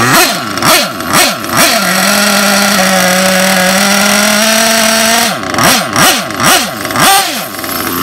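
Nitro RC buggy's small glow-fuel engine being revved: four quick throttle blips, then held at a steady high rev for about three seconds, then four more blips before it drops back.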